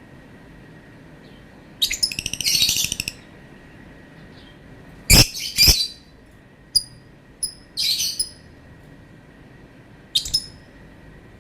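Lovebird calling in separate bursts: a rapid chattering run about two seconds in, two loud harsh shrieks around five seconds, then short high chirps and two more brief calls near the end.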